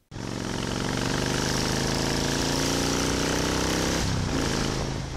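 Motorcycle engine pulling under acceleration, its pitch rising steadily. About four seconds in the tone breaks and shifts, and it grows a little quieter.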